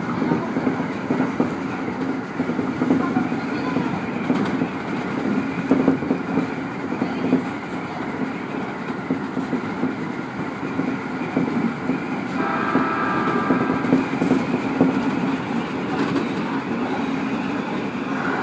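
E501-series electric train running along the track, heard from inside the cab: a steady rumble of wheels on rail with the clickety-clack of rail joints. A brief steady ringing tone sounds about twelve seconds in.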